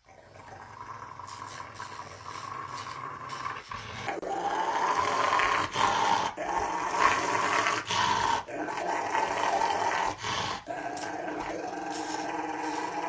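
Rottweiler growling without let-up while its nails are clipped, an aggressive protest at the nail trim. The growling gets much louder about four seconds in, with short breaks, then settles back to a steady growl.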